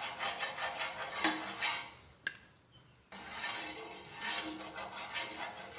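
Cooking oil sizzling and crackling in a hot frying pan, with a sharp clink about a second in. The sizzle breaks off just past two seconds and starts again abruptly about a second later.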